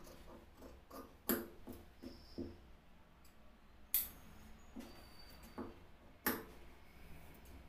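Large tailor's shears cutting shirt fabric: soft snips and light knocks on the table, with three sharp clicks of the blades about a second, four seconds and six seconds in.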